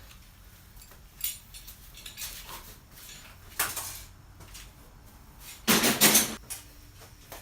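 Steel C-clamps being handled: scattered knocks and clinks of metal on metal, with one louder clatter lasting about half a second late on.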